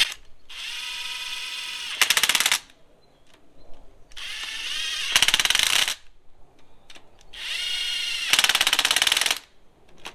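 Cordless impact driver run three times: each time the motor whines as a nut spins down, then breaks into rapid, louder hammering as the nut seats and tightens on the carburetor mounting.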